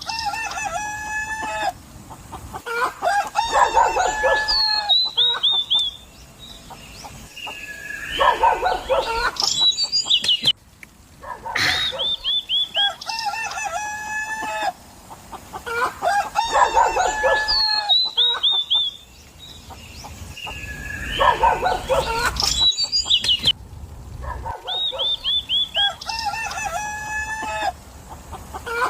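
Roosters crowing again and again, a bout every few seconds, with clucking between the crows.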